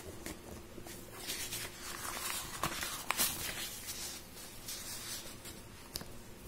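Soft rustling of hands and a pen moving over a notebook page, with a few light clicks.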